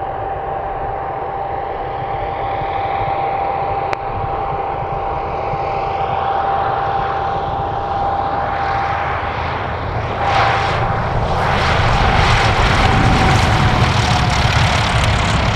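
Avid Flyer light aircraft's engine and propeller running steadily at power, with a rushing, hissing airflow sound that swells from about ten seconds in while the engine note sags slightly near the end.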